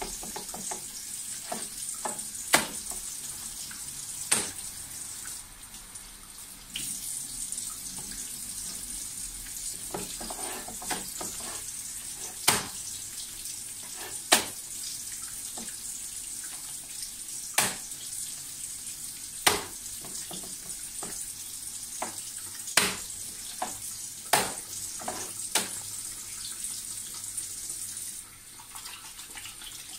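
Minced chicken being beaten by hand, lifted and slapped down onto a plate: repeated sharp slaps a second or two apart, over a steady hiss.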